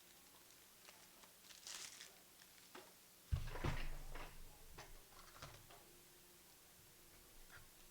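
Trading cards being handled and sorted by hand: faint clicks and a sliding rustle, with a soft thump a little over three seconds in.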